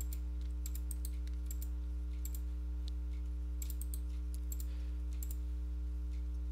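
Irregular clusters of short clicks from a computer mouse and keyboard, several small groups of taps spread through the few seconds, over a steady low electrical hum.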